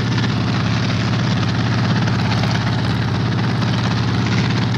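Sikorsky HO4S helicopter in flight, its piston engine and rotor making a steady, even drone that holds the same pitch throughout.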